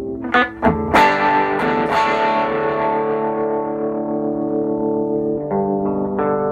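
Electric guitar played through a vintage Sano 16WR tube combo amplifier: a couple of quick strums, then a chord struck about a second in that rings on and slowly fades, with new chords played near the end.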